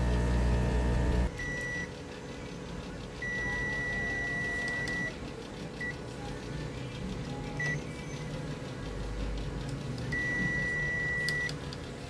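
A steady hum cuts off about a second in. Then a digital multimeter beeps on its continuity setting as its probes touch the pins of a TV power board's MOSFET: five beeps at one high pitch, three short and two lasting over a second.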